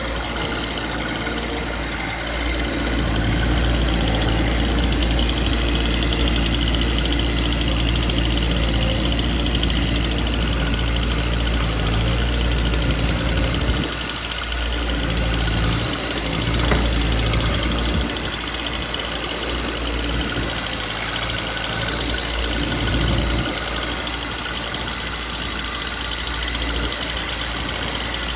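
Stihl Farm Boss 271 two-stroke chainsaw with a 20-inch bar running under load as it cuts through a thick red oak log, with brief drops in engine sound about halfway through and again a few seconds later. The saw is at the limit of its size and struggles in this cut.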